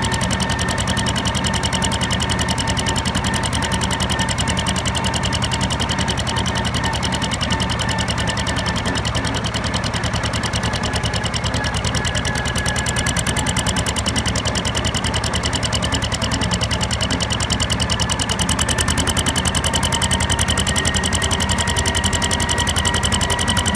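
Volvo T 230 tractor engine running under way, heard from the driver's seat: a steady, rapid engine beat with a high whine above it. Near the end the pitch creeps up a little and it gets somewhat louder.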